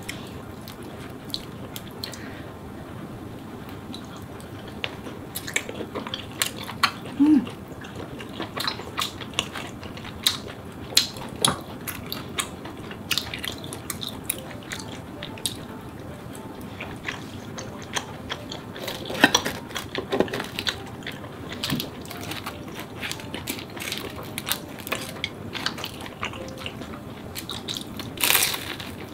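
Close-miked eating: chopsticks clicking against food and dishes, with chewing, in scattered sharp clicks over a low steady background. A louder bite comes near the end.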